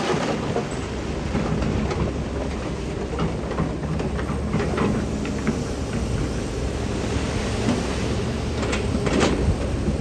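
Diesel engine of heavy earthmoving machinery running with a steady low rumble, with scattered sharp knocks and cracks of stone, the loudest a little after nine seconds in.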